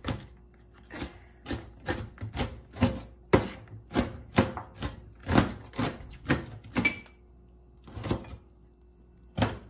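Chef's knife chopping red onion on a plastic cutting board, a sharp knock at each stroke, about two a second, pausing about seven seconds in before a couple more chops.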